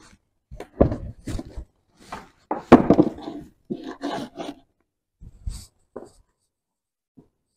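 Scrap wooden planks being handled: boards knocked and scraped against each other and the tile floor in a string of short, irregular bursts that thin out over the last couple of seconds.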